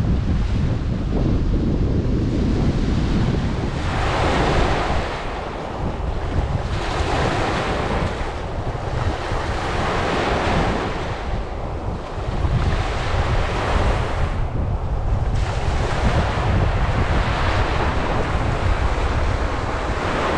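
Wind-driven lake waves breaking on a sandy shore, the wash swelling and fading every three seconds or so, over a steady rumble of strong wind on the microphone.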